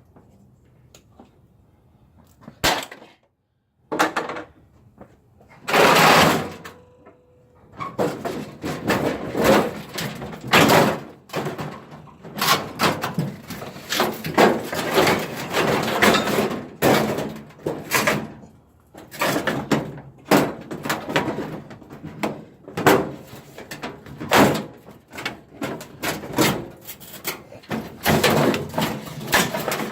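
Handling of scrap parts: a few separate knocks, then from about eight seconds in continuous irregular knocking, rattling and scraping as pieces are moved about.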